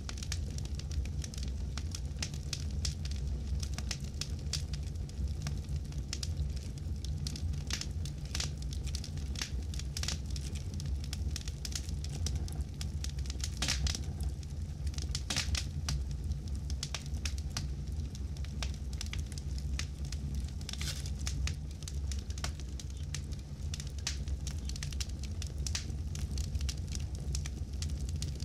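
Campfire burning with a steady low rumble of flame and irregular sharp crackles and pops, a few louder pops scattered through.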